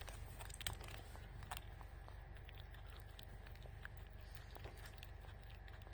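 Faint, scattered small clicks and scratches over a steady low hum.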